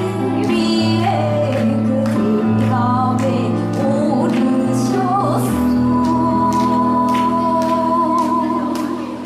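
A woman singing into a handheld microphone over a backing track of bass and a steady drum beat. About halfway through she holds one long note until near the end.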